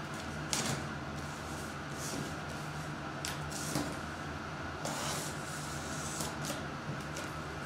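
Box cutter slicing through packing tape on a cardboard case, then the cardboard flaps being pulled open: a string of short scraping, ripping and rustling sounds over a low steady hum.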